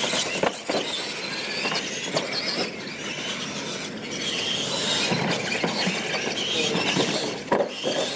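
Radio-controlled monster trucks racing over a dirt track and jumps: their motors and gears whine at a high pitch, with a few scattered knocks as the trucks land and hit ramps.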